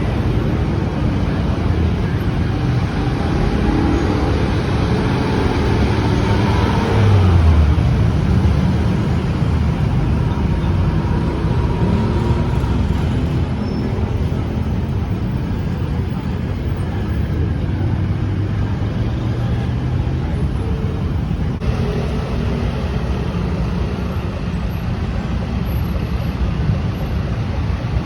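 Steady low engine rumble with a surge of a motor revving and passing about seven seconds in.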